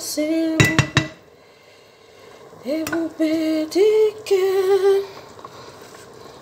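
A woman singing a slow tune in long held notes, pausing for a second or so and then carrying on. About half a second to a second in come a few quick metallic clinks against the steel cooking pot.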